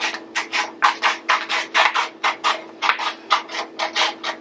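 Scissors snipping through a sheet of construction paper along its fold, a quick, even series of short crisp cuts at about four a second.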